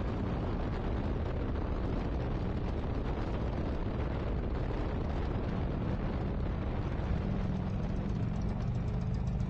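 A 1990 Harley-Davidson Ultra Glide Classic's 1340 cc Evolution V-twin running steadily while the bike cruises, its low rumble under a constant rush of wind and road noise.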